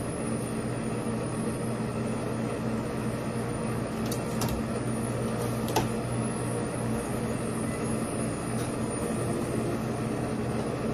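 Steady low hum and rush of commercial kitchen equipment running, with a couple of light clicks and knocks from handling at the counter about halfway through.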